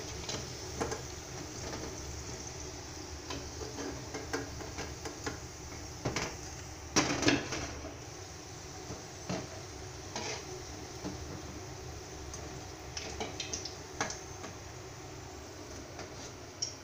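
Parippu vadas sizzling in hot oil in a steel kadai, with a slotted steel spoon knocking and scraping against the pan as they are lifted out. The loudest clatter comes about seven seconds in.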